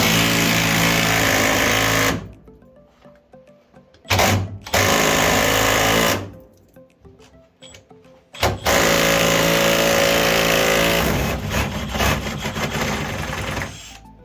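Cordless impact wrench hammering on a rusted bolt soaked in penetrating spray, in three bursts of about two seconds each; the third runs on into lighter, uneven running as the bolt breaks loose.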